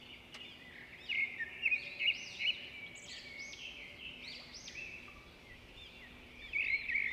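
Birds chirping and calling over one another, a busy run of short rising-and-falling notes, loudest about one to three seconds in and again near the end.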